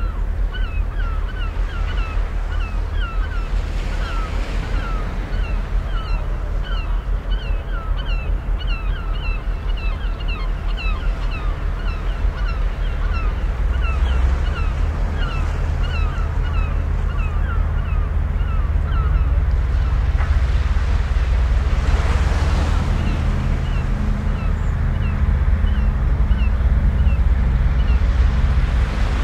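Sea water washing against the harbor shore, with wind rumbling on the microphone and one wash swelling louder partway through. A bird gives a long series of short, clipped calls, about one or two a second, that stops about two-thirds of the way through and starts again near the end.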